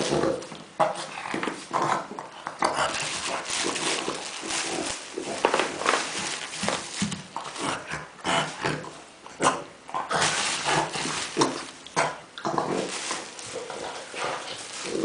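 French bulldog making pig-like noises in quick, irregular bursts while playing.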